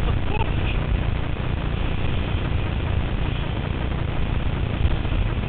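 Wind buffeting the microphone of a boom-mounted camera on a windsurfer under sail, a steady low rumble with the rush of water and spray beneath it.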